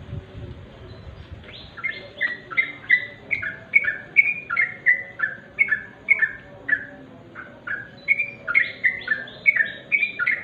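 Yellow-vented bulbul (trucuk) singing in its natural voice. After a short pause it gives a fast run of short, bubbly chirping notes, about three a second, that keeps going.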